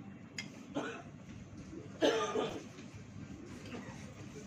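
A single short cough about two seconds in, over steady restaurant background noise, with a few light clicks of cutlery against a plate.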